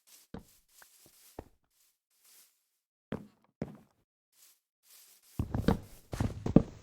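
Scattered soft thuds and knocks, then a quick run of louder thumps in the last second and a half.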